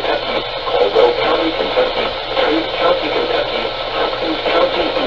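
A voice heard over a radio receiver during a weather-warning broadcast, thin-sounding with a steady static hiss underneath.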